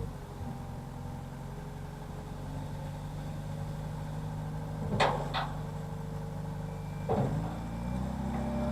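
Engine of the work vehicle that has just tipped a load of root zone, running steadily. Two sharp clanks come about five seconds in and another just after seven seconds, and the revs pick up slightly near the end.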